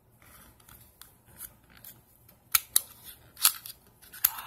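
Sharp little plastic clicks and light handling noise from a plastic cable winder being worked by hand, with a few distinct clicks in the second half.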